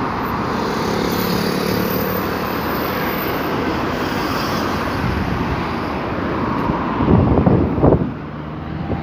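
Steady road traffic noise from cars and motorbikes passing on a busy road, a continuous rush of tyres and engines. Near the end come a few louder, short low bursts.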